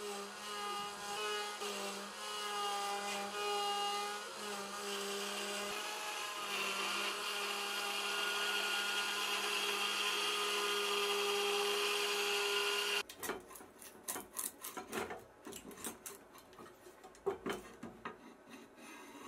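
CNC router spindle running steadily while a tiny end mill cuts fret slots into a wooden guitar neck, with a steady whine and a cutting hiss. About two-thirds of the way through the sound cuts off suddenly, giving way to scattered knocks and rustles as the cut neck is handled.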